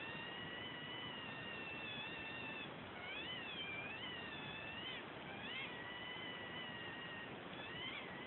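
A pet's long, high-pitched whining cry, held mostly on one pitch with almost no break. Its pitch swoops sharply up and down a few times.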